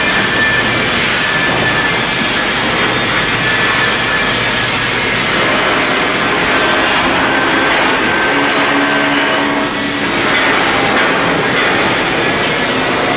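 Loud, steady industrial machinery noise from shipyard construction work, with a faint high whine throughout and a lower hum that comes in for a couple of seconds past the middle.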